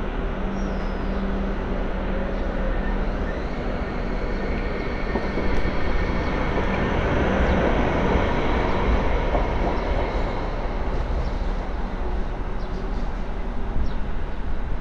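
Hong Kong MTR Light Rail Phase III light rail vehicle pulling away from a stop and passing close by, its wheels running on the rails with a rising motor hum. The rumble builds to its loudest about halfway through as the car goes past, then carries on steadily as it runs off.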